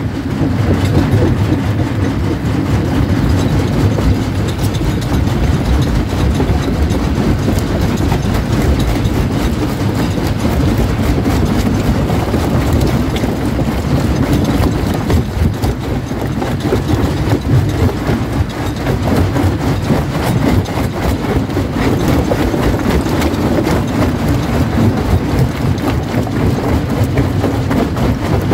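Jaw crusher running and crushing quarry rock: a continuous heavy mechanical clatter with a dense stream of cracks and grinding as stones break between the jaw plates.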